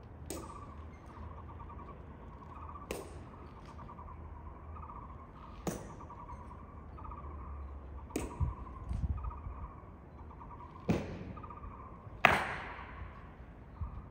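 Honor guard soldiers' boots striking the stone pavement in slow ceremonial drill steps, one sharp crack every two to three seconds, the loudest one near the end ringing on briefly.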